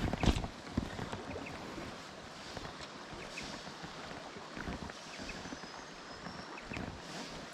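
River water flowing steadily, with wind buffeting the microphone in a few low thumps just after the start.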